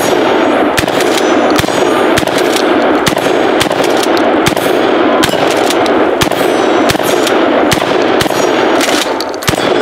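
A DP-12 12-gauge double-barrel pump shotgun fired in a rapid string, a shot roughly every half second, with steel targets ringing from the hits.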